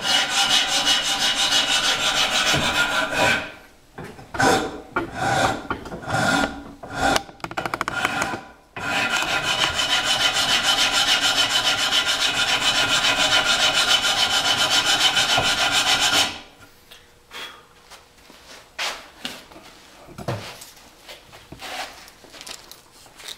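A file or rasp worked back and forth over a longbow's tenon, flattening its back side. Rapid strokes run together for about three seconds, come choppy and broken for a few seconds, run steadily again for about seven seconds, then drop to quieter, scattered strokes.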